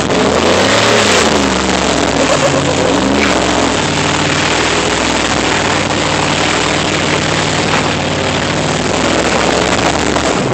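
Off-road vehicle's engine revving under load, rising and falling in pitch a few times, then holding steady, under a loud, even hiss.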